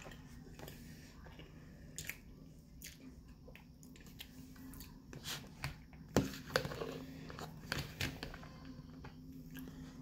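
A metal utensil clicking and scraping against a plastic food tub while scooping food, with the sharpest clicks a little past the middle, and soft chewing between them. A low steady hum runs underneath.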